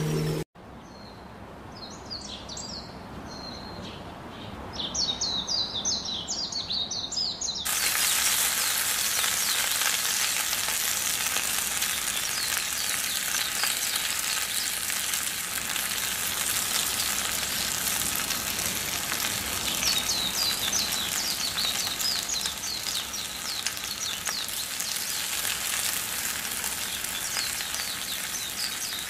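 Sliced onions sizzling in hot oil in a clay pot, the sizzle starting suddenly about eight seconds in and then going on steadily. Birds chirp in the background before and under the sizzle.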